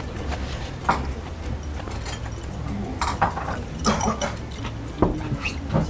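Someone eating fried breaded shrimp by hand: chewing, with a few short clinks and knocks as a glass of water is picked up and handled on the table, over a low steady hum.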